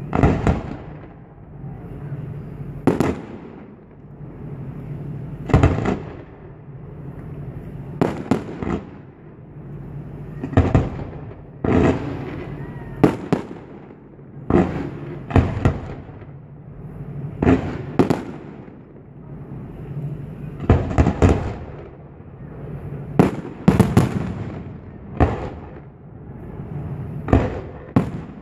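Fireworks display: a string of sharp bangs from bursting shells, one every second or two and often in quick pairs, over a steady background rumble.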